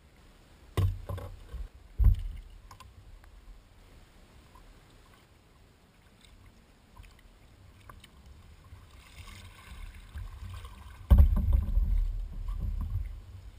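Thumps and knocks on a sea kayak's hull as the rod and paddle are handled: two sharp knocks in the first couple of seconds, then a heavier thump about eleven seconds in followed by a couple of seconds of low rumbling.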